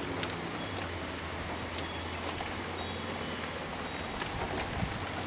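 Heavy rain pouring steadily, a dense even hiss with scattered drops ticking on nearby surfaces.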